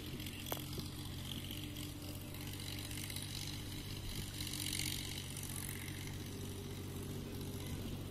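8 hp diesel engine of a water pump set running steadily, with water pouring from the irrigation pipe outlet onto the field. A brief click about half a second in.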